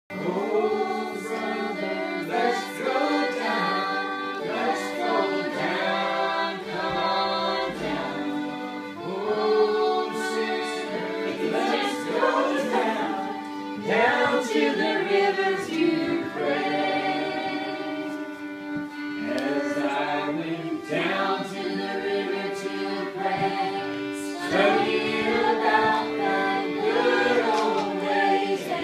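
A group of men and women singing together, accompanied by a fiddle and acoustic guitars.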